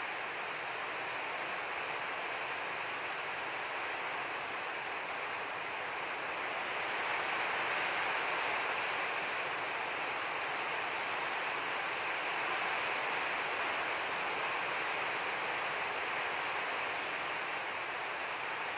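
Steady, even hiss with no distinct events in it, swelling slightly about seven seconds in.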